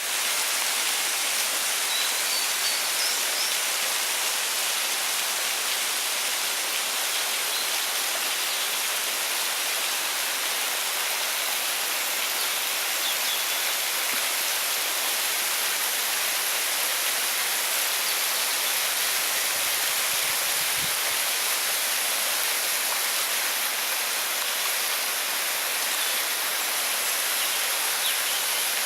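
Varovitets waterfall: water falling and rushing in a steady, even hiss.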